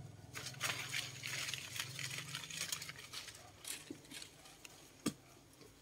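Leaves and twigs of a tree rustling and crackling in quick irregular bursts as a small monkey climbs through the branches. The rustling is densest in the first three seconds, over a low steady hum, and there is a single sharp tap about five seconds in.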